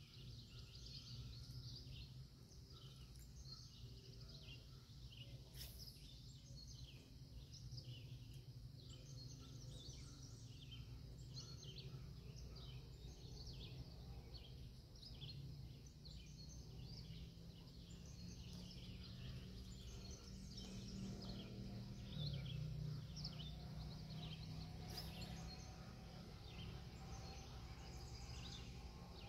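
Faint riverside ambience: many small bird chirps and calls throughout, over a low steady rumble.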